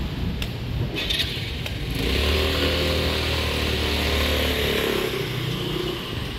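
A motor scooter passes close by, its small engine running steadily for a few seconds from about two seconds in, then easing off as it moves away.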